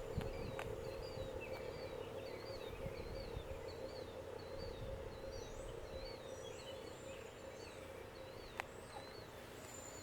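Birds chirping outdoors: one short chirp repeated about every half second, with a few higher calls among them. Beneath them runs a faint steady hum, and there is a single sharp click near the end.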